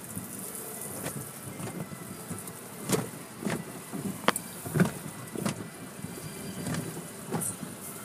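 Cloth strips of an automatic car wash slapping and rubbing over the car's windshield, heard from inside the car over a steady hiss. The slaps come thick and irregular from about three seconds in.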